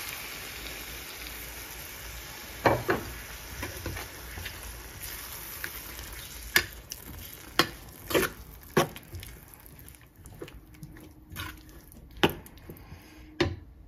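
Prawn curry sizzling in a metal pan as blended coconut is poured in, the sizzle dying down as the sauce goes in. A metal spatula stirs it, knocking sharply against the pan about eight times.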